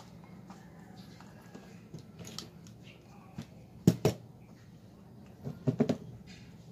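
Hands working a roll of electrical tape around a small plastic part: light clicks and rustles, two sharp knocks about four seconds in, and a quick cluster of knocks near the end.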